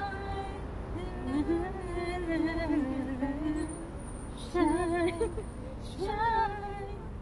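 Women singing a tune aloud in held, wavering phrases with short breaks, over a steady low rumble of street traffic.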